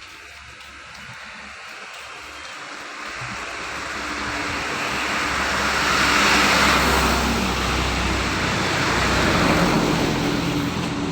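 A motor vehicle running, its engine and road noise growing steadily louder over the first six seconds or so and then staying loud.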